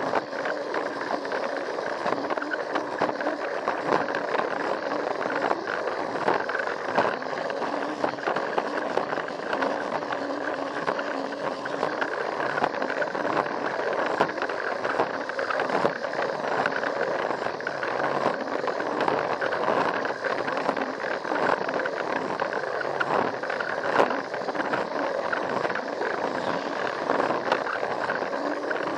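Plarail toy train's small battery motor and gears running steadily, with its plastic wheels rattling over blue plastic track and occasional clicks, heard close up from a camera riding on the train.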